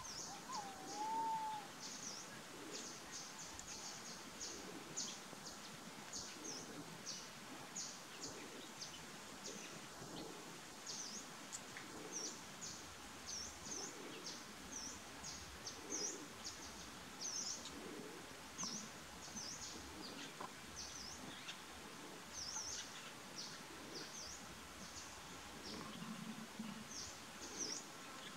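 Small birds chirping over and over, many short high calls a fraction of a second apart, with one brief whistled note about a second in.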